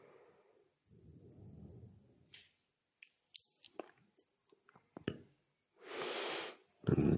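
A speaker's breathing and mouth noises close to the microphone during a pause: a soft breath, then several small lip and tongue clicks, then a fuller in-breath near the end before speaking resumes.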